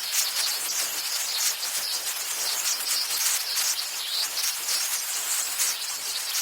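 Pressurized gas hissing out in a steady, high-pitched jet, with a wavering edge in the upper hiss, as from a smoke machine or a compressed-air release.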